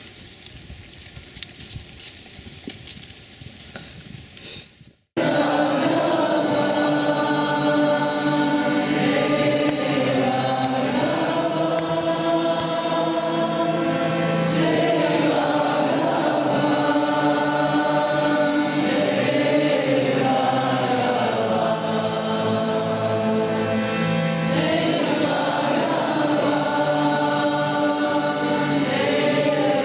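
Group of voices chanting in unison, held notes moving slowly in pitch. It starts abruptly about five seconds in, after a few seconds of low background noise with scattered clicks.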